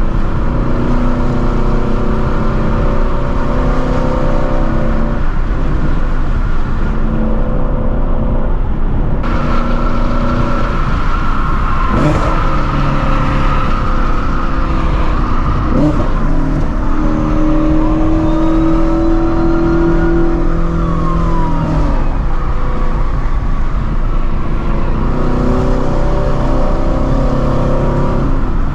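Straight-piped Ford Shelby GT350's 5.2-litre flat-plane-crank V8 running under way, its note stepping up and down in pitch several times with throttle and gear changes. Two brief sharp cracks come about 12 and 16 seconds in.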